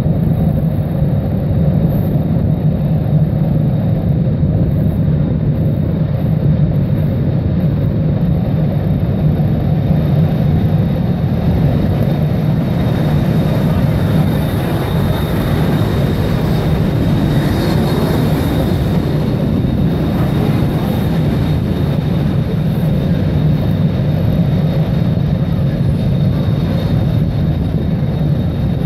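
Steady low wind noise on the microphone from riding a bicycle through city streets, mixed with street traffic.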